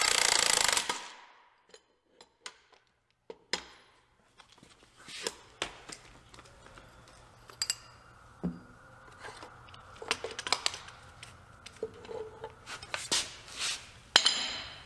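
A cordless drill driving a bearing puller's forcing screw runs for about the first second and stops. Scattered metal clinks and knocks follow as the puller, the pulled-off drive shaft carrier bearing and the drill are handled and set down.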